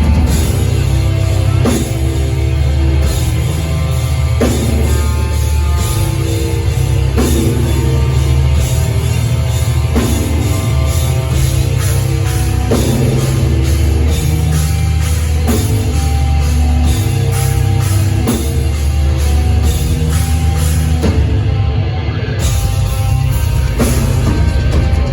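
Live heavy metal band playing loud, with distorted guitars, bass and a drum kit keeping a fast, steady beat.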